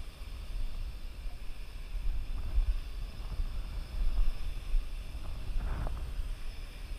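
Gusty low rumble of wind and propeller wash on the microphone, over a faint steady high whine from the Parrot AR.Drone 2.0 quadcopter's electric motors in flight.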